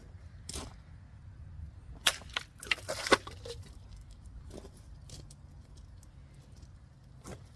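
Small stainless-steel camping axe chopping into plastic bottles: a few sharp strikes, the loudest a quick cluster about two to three seconds in, and a last hit near the end.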